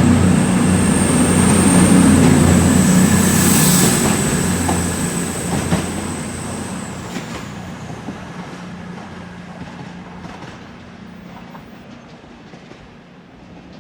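Diesel train's engines running steadily as it pulls away, fading into the distance, with a thin high whine that ends about seven seconds in.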